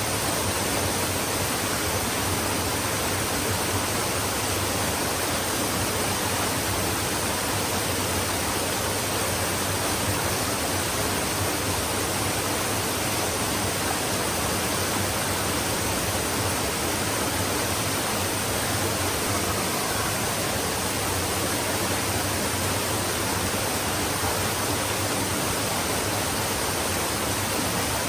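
Flowing stream: a steady, even rush of running water with no changes.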